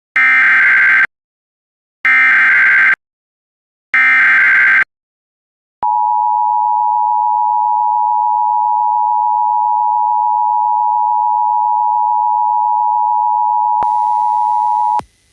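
Emergency Alert System SAME header: three short bursts of warbling data tones about two seconds apart, encoding the alert. Then the two-tone EAS attention signal holds steady for about nine seconds and cuts off, announcing that the emergency message follows.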